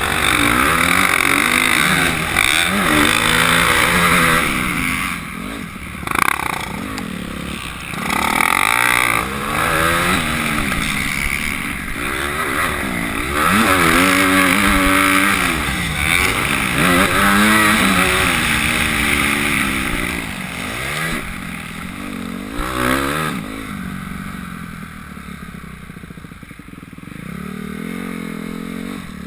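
Motocross bike engine revving up and dropping back again and again as the rider opens and closes the throttle and shifts, with wind rushing over the helmet-mounted camera. It eases off and runs quieter for the last few seconds.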